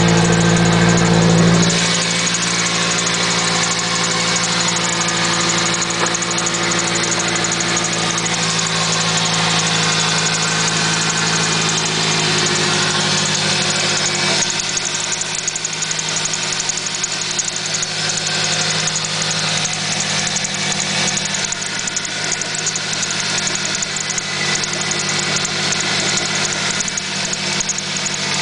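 Toyota Celica engine idling with a squeaky chirp coming from the engine. The low engine hum drops slightly about two seconds in, then the idle holds steady.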